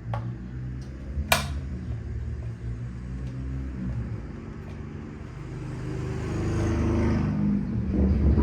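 A steady low mechanical hum, with one sharp click about a second in and a hiss that builds in the last few seconds.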